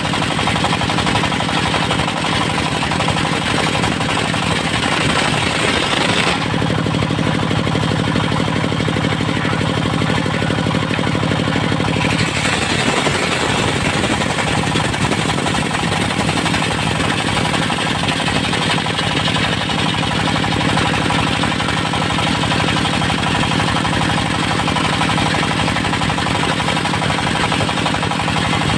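Engine of a portable circular-saw sawmill running steadily with a fast knocking beat. For several seconds around the middle the tone shifts, deeper and with more hiss, then returns.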